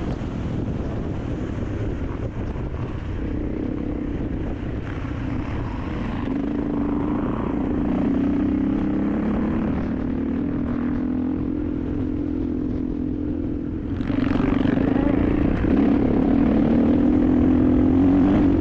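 Motorcycle engine running steadily under way, a low drone that gets louder about fourteen seconds in.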